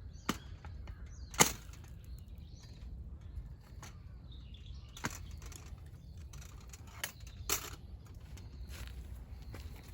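Wood campfire crackling: a handful of sharp, irregular pops and snaps over a low steady rumble, the loudest about a second and a half in, with faint bird chirps behind.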